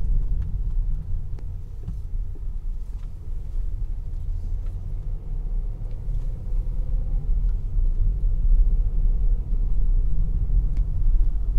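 Car driving at low speed, heard from inside the cabin: a steady low rumble of engine and road noise.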